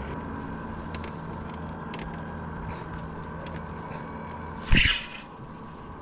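Electric trolling motor running with a steady hum and a faint whine. About three-quarters of the way in comes a single loud, brief knock.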